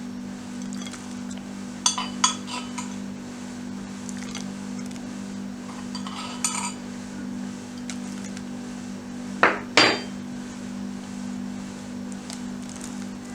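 Kitchen utensils clinking against dishes: a few light clinks, then two louder knocks close together about two thirds of the way in, over a steady low hum.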